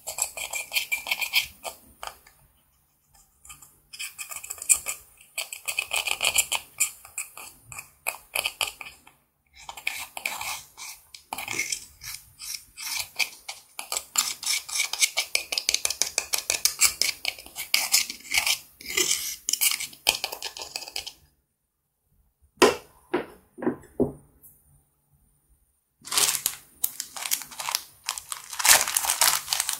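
Small metal tool scraping and gouging pressed blush powder out of a makeup compact, a rapid run of dry scratching strokes, with crumbs pattering into a glass dish. It stops briefly with a few single strokes, then near the end a plastic zip bag of pearl beads is handled, crinkling.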